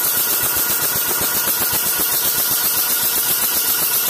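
Portable high-pressure PCP air compressor running, its piston pumping in a rapid, even pulse, while air hisses out of its open relief valve and outlet to purge leftover water and cleaning product. Its cooling fans whir along underneath.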